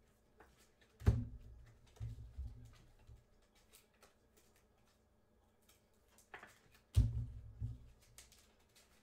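Hands handling trading cards on a tabletop: dull thumps about a second in, a couple more around two seconds and again near seven seconds, with light clicks and taps between.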